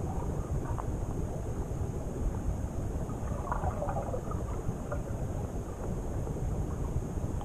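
Muffled low rumble of pond water picked up underwater through a camera's housing, with a short cluster of faint clicks and crackles about halfway through, while crucian carp feed close around it.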